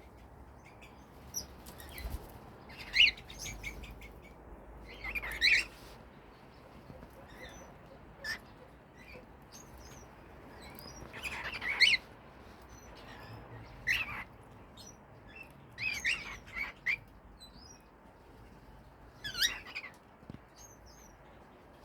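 Cockatiels chirping in short, separate calls every few seconds, with quiet stretches between.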